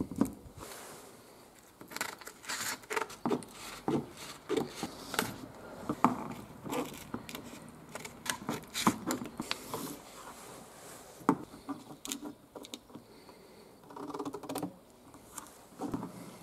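Thin clear plastic sheet being handled and cut with scissors on a tabletop: irregular crackles, clicks and snips, with the odd tap of a wooden frame against the table.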